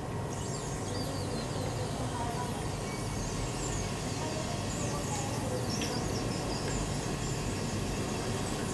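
Cooking oil sizzling in a hot clay pot just after being poured in: a steady hiss with scattered faint crackles.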